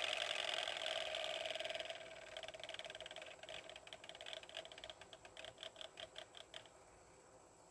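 Kirby zipper brush turbine tool spinning down with the suction off: a steady whir for about two seconds, then a rhythmic ticking that slows and fades until the brush stops, about seven seconds in.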